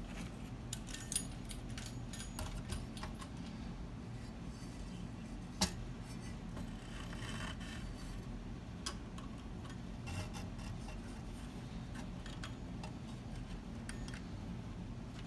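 Small clicks, taps and scrapes of a circuit board being handled and fitted into a metal amplifier chassis, with one sharper click about five and a half seconds in, over a steady low background hum.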